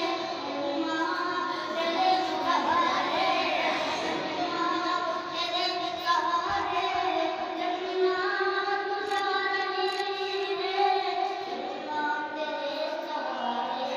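A voice singing a naat melody in long, held, ornamented notes that slide between pitches.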